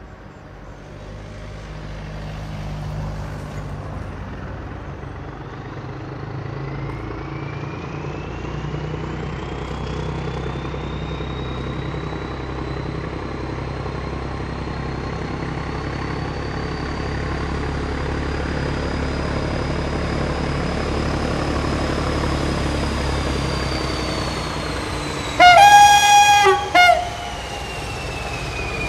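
Diesel locomotive working under power, its engine drone growing steadily louder with a high whine that climbs, holds and then falls away. Near the end it sounds its horn: one loud blast followed by a short second one.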